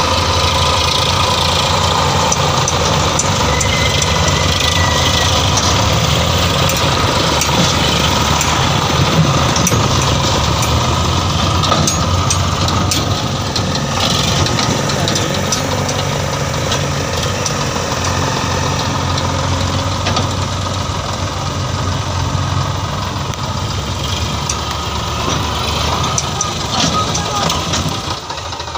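Sonalika DI 35 tractor's diesel engine running steadily under load as it pulls a loaded trailer through mud, with a continuous clatter.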